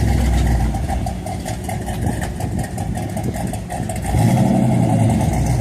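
A 1961 Chevy Impala SS's 409 cubic-inch V8 running at idle with an even, pulsing low rumble, growing louder about four seconds in.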